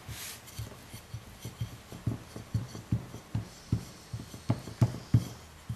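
Wooden rolling pin rolling out a stuffed paratha on a round wooden board: a run of irregular low knocks and thumps, a few each second, as the pin rolls and bumps on the board.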